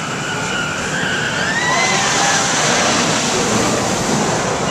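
Amusement-park ride train running along its track: a steady rushing noise that swells about a second and a half in, with a faint wavering high tone over it.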